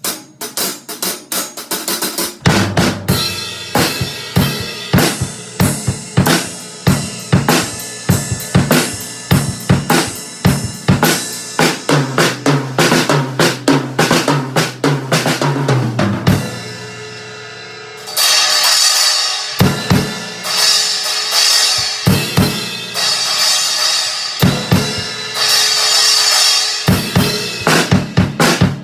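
Acoustic drum kit played at full tilt: rapid snare and bass drum hits with cymbals. About sixteen seconds in the playing breaks off briefly while a ring dies away, then it comes back in with heavy cymbal crashes.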